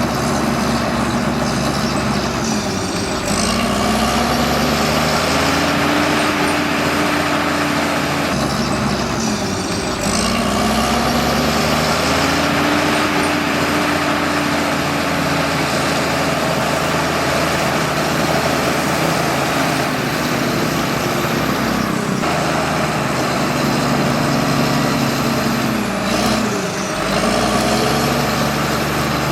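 Bulldozer's diesel engine running hard while pushing soil. Its pitch sags and recovers four times as the load comes on and eases off.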